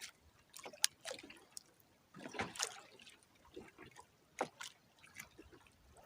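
Faint, irregular splashing and trickling of water, with a few sharp small clicks and knocks.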